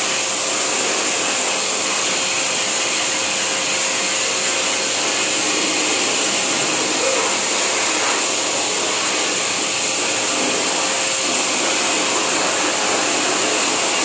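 Hose-type pet grooming dryer blowing air onto a dog's coat: a steady, loud rush of air with a high whine that doesn't change.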